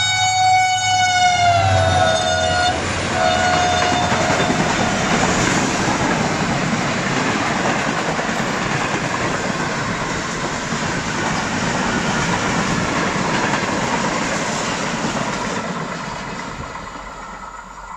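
An HGMU-30 diesel locomotive sounds a long horn blast as it passes at speed. The horn drops in pitch as the engine goes by, breaks off briefly, then sounds again for about two more seconds. The passenger coaches then rush past with a steady loud noise of wheels on rails, which fades near the end.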